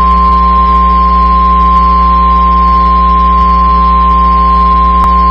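NOAA Weather Radio's 1050 Hz warning alarm tone, one steady unwavering pitch from a radio receiver, the alert that comes before a National Weather Service warning message. Under it are a low hum and radio static, with a short click about five seconds in.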